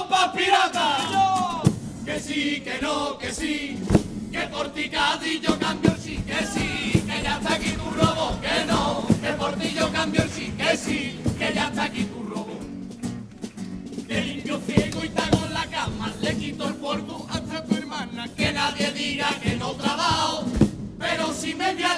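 A chirigota, a men's Cádiz carnival chorus, singing together in chorus to a carnival tune with regular drum beats.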